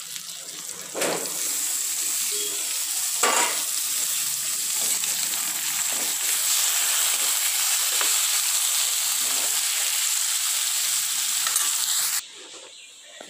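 Chicken leg pieces and tomato slices sizzling in hot oil in a metal kadai, stirred with a ladle that knocks against the pan a couple of times near the start. The sizzle starts about a second in and cuts off suddenly near the end.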